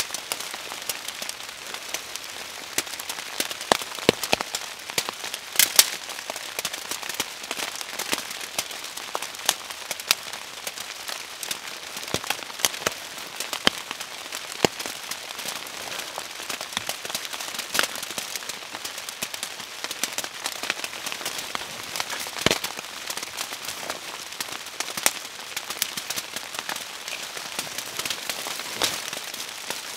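Steady rain, a constant hiss with many irregular sharp ticks of drops striking nearby surfaces.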